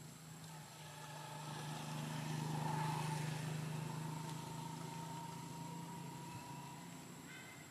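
A motor vehicle's engine going by: a steady hum that swells to its loudest about three seconds in and then slowly fades.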